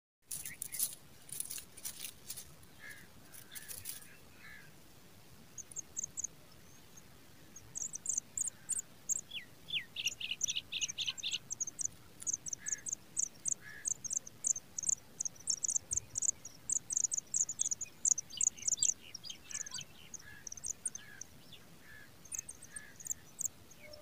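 Pipit nestlings begging with runs of short, very high, thin chirps, repeated quickly while an adult feeds them, with a few lower sliding chirps among them. There are scratchy rustles in the first few seconds.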